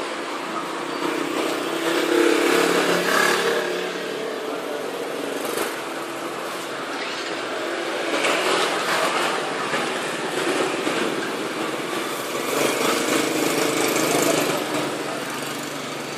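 Motorcycle and street traffic noise that swells louder several times as engines pass, mixed with the gritty scrape of a stone pestle (ulekan) grinding in a stone mortar (cobek).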